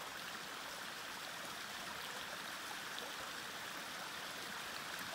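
Mountain creek water flowing, a steady even rush.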